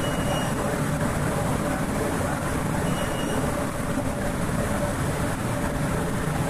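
Automatic dishwasher running: a steady rushing noise of its water spray and pump, with a faint constant hum.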